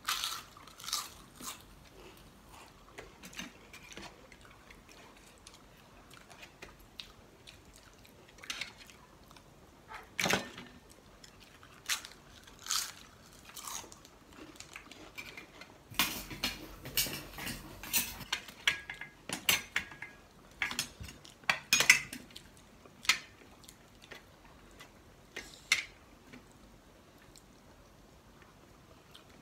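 Eating sounds of people chewing and biting food taken by hand, with scattered sharp crunches and clicks that come thickest around the middle of the stretch, and light clinks on steel plates.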